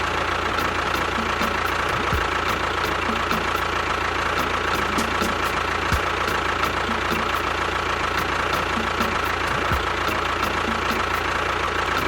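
The small motor of a home-built mini bulldozer runs steadily, with a thin whine over it and a faint regular ticking about three times a second.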